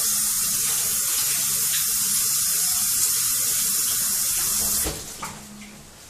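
Kitchen sink faucet running in a steady hiss of water while hands are washed under it, shut off suddenly about five seconds in.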